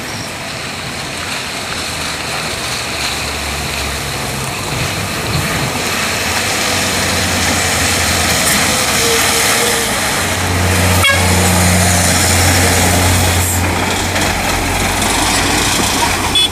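Diesel engine of a heavily loaded Mitsubishi Fuso log truck running under load as it drives up and passes close, its steady hum growing louder and loudest in the second half. A sharp click comes about eleven seconds in.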